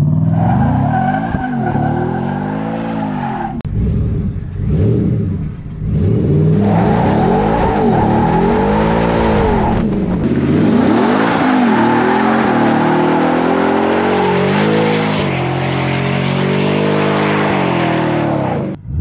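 A 2023 Ford F-150 Raptor R's supercharged V8 doing a burnout: it revs up and down again and again while the tyres spin and squeal. From about ten seconds in the revs are held high and the tyre noise becomes a steady, loud hiss.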